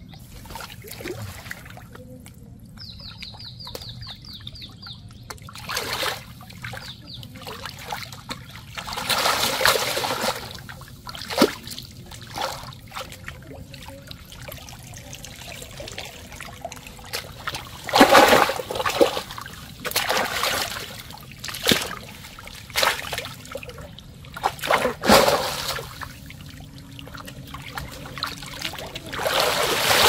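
Water splashing and trickling as a cast net is hauled through shallow muddy water and lifted out with fish in it, water streaming off the mesh. The loudest parts are separate splashes a few seconds apart.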